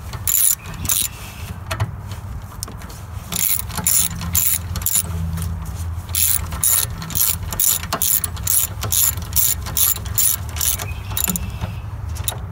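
Socket ratchet wrench clicking in repeated runs of quick clicks as the intake nuts are run down onto their studs on a Honda GX160 engine.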